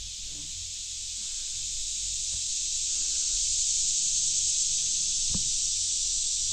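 Woodland insect chorus: a steady, high-pitched hissing drone of many insects that swells over the first few seconds and then holds.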